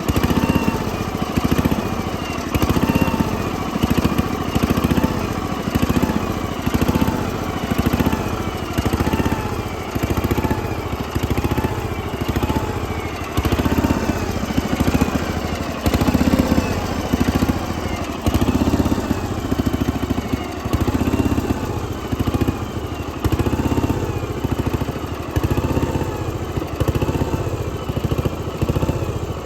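A 1988 Kasco II sawmill running steadily, its pitch swelling and dipping in a regular cycle about once a second.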